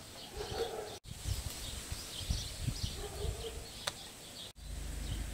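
Birds chirping in the background, and about four seconds in a single sharp click as hand pruners snip through the 1/4-inch drip tubing.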